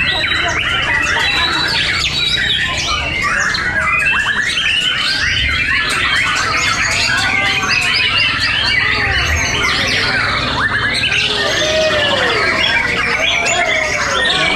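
Many caged white-rumped shamas (murai batu) singing at once in a contest, a loud, dense, overlapping mix of rapid whistles and chirps.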